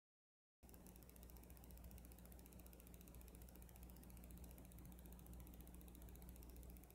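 Near silence: a faint steady hiss and low hum of the recording's noise floor, starting after a fraction of a second of dead silence.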